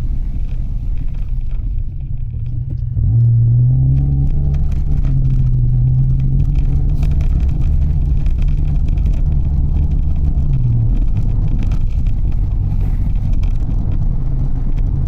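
Mitsubishi Delica van driving: steady engine and road noise, the engine pitch rising as it picks up speed about three seconds in, then settling lower after about eleven seconds.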